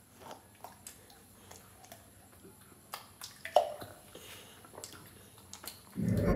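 Quiet room with scattered faint clicks and small handling noises from food and drink cans, then a short, low sound about six seconds in, the loudest thing heard.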